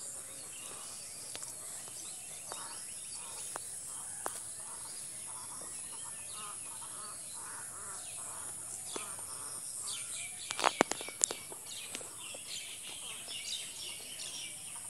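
Rural outdoor background of birds calling over a steady high hiss. About ten seconds in comes a short cluster of sharp crackles and ticks as hands pick weeds and small fish out of the mesh push net.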